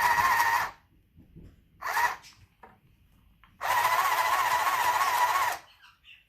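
Electric sewing machine running in stop-start bursts as the foot pedal is pressed and released: a steady motor whine that stops about half a second in, a short burst about two seconds in, then a run of about two seconds near the end.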